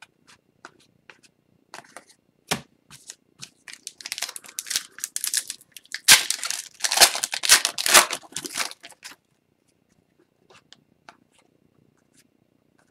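Foil wrapper of an Upper Deck hockey card pack being torn open and crinkled, densest about four to nine seconds in, after a few light clicks of cards being handled.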